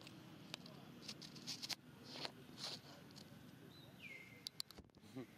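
Faint outdoor forest-floor ambience: scattered soft rustles and ticks, with one short high-pitched call about four seconds in that drops in pitch and then holds briefly.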